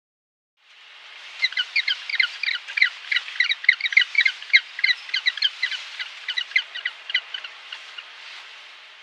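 Bird chirping in a quick series of short, high calls, several a second, over a steady hiss. The calls stop near the end, and the hiss fades after them.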